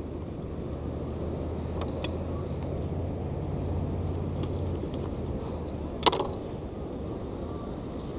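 Low steady engine drone under outdoor background noise, fading away after about five seconds. A single sharp knock about six seconds in is the loudest sound.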